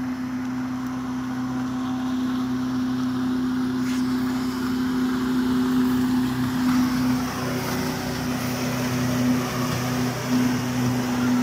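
Motorboat engine running with a steady drone as the boat moves across the fast river, over the rush of the rapids. The rushing water grows louder in the second half.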